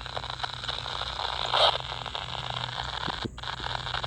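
CB radio receiver hissing with static and crackle between transmissions, with a louder burst of noise about a second and a half in and a brief dropout about three seconds in.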